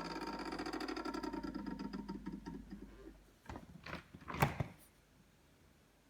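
Samsung refrigerator making a fast, even rattle with a low hum, from ice built up in the evaporator fan compartment. The rattle slows and dies away after about three seconds, followed by a few sharp knocks.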